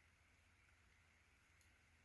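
Near silence: faint room tone with a barely audible small tick about one and a half seconds in.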